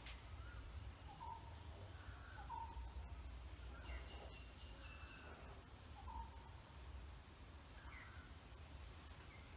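Soft scratching of a marker pen writing on a whiteboard, over a faint steady high-pitched background whine.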